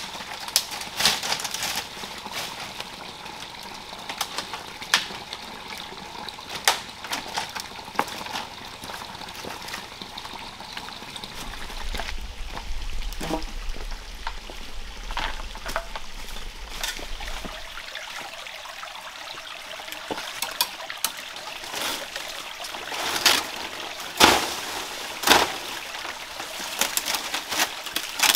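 Water pouring from a bamboo pipe and trickling into a pool, over a steady background of running water. Scattered sharp knocks and rustles from handling bamboo and leaves, loudest as three sharp knocks about a second apart near the end.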